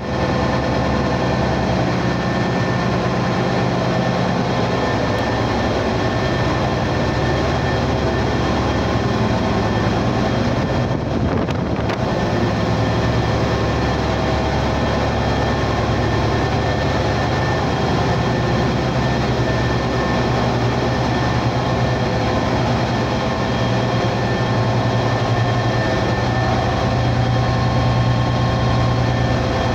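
Electric drive motors of a gas carrier's cargo compressors running in their motor room: a loud, steady machinery hum with several constant tones layered over it.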